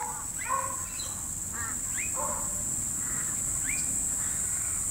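A series of short, high-pitched animal calls, several with a quick upward sweep, repeating every half second or so.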